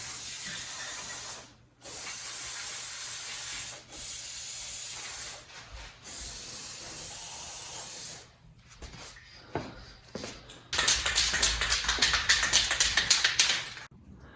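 Aerosol can of WD-40 Specialist dry PTFE lube spraying onto garage door roller bearings, in four long hisses of about two seconds each. Near the end comes a loud rattling for about three seconds.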